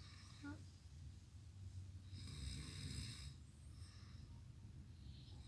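A sleeping person snoring heavily: one long snore about two seconds in, and the next starting near the end.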